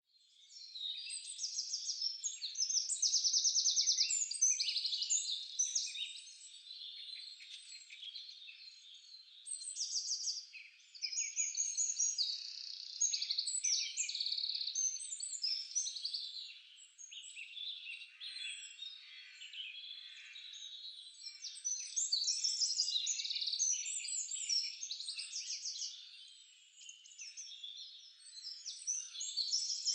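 A chorus of many small songbirds chirping and trilling at once, high-pitched and overlapping, swelling louder and fading back every few seconds.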